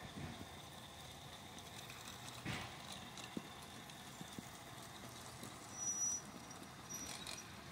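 G-scale model train running on garden railway track, faint, with light irregular clicks and knocks of its wheels on the rails and a few brief high squeaks in the second half.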